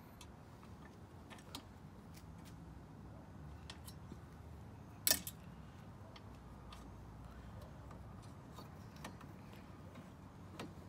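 Scattered light clicks and taps of plastic and metal parts as the wire hoop of an animatronic figure's frame is handled and fitted into its brackets, with one sharper click about five seconds in.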